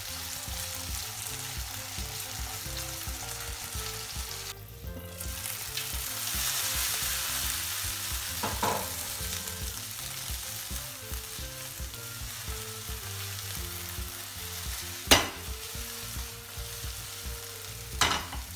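Diced potatoes, carrots and red peppers sizzling as they sauté in oil in a frying pan, stirred with a silicone spatula and tossed in the pan. A few sharp knocks sound over the sizzle, the loudest about fifteen seconds in.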